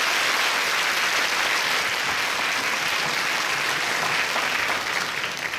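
Audience applauding, a dense steady clapping that thins out near the end.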